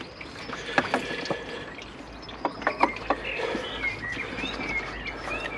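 Scattered clicks and knocks from a water pump being wiggled and worked off its locating dowels on a BMW N47 diesel engine, mostly in the first half. Birds chirp in the background in the second half.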